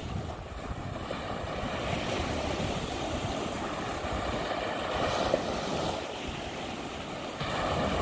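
Lake Michigan waves washing on the shore, a steady rush of surf that swells about five seconds in and again near the end, with wind buffeting the microphone.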